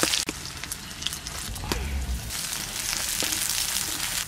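Sliced red onions sizzling steadily in hot oil in a pan, with a few light knocks as a wooden spatula stirs them.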